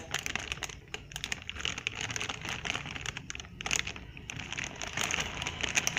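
Plastic courier mailer bag crinkling and crackling in the hands as it is held and turned over, in small irregular crackles.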